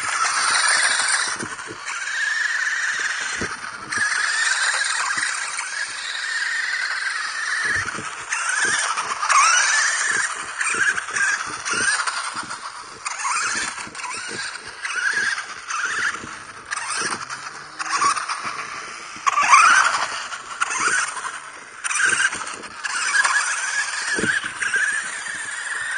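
Toy-grade RC buggy's small electric motor and gearbox whining, the pitch rising and falling again and again as the throttle is worked. Short knocks and clatters come from the wheels and chassis bumping over broken concrete slabs.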